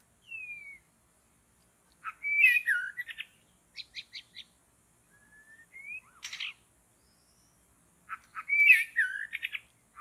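White-rumped shama singing in separate whistled phrases: a short falling slur, a loud warbled phrase about two seconds in, a few short clipped notes, a rising whistle ending in a sharp note around six seconds, and another warbled phrase near the end.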